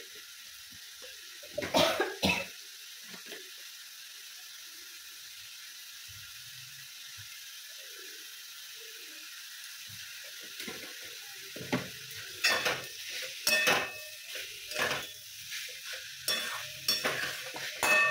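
Broccoli frying with a steady sizzle in a steel kadai. There are two sharp clicks about two seconds in, and from about two-thirds of the way through, a steel spatula stirring and scraping the pan with repeated clatters.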